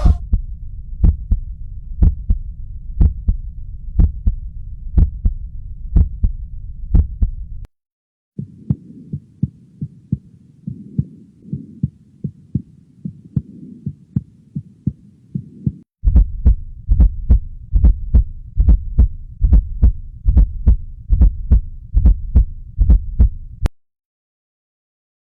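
Normal heart sounds: a regular lub-dub, the paired first and second heart sounds, at about one beat a second over a low hum. It is heard in three stretches separated by short silent gaps.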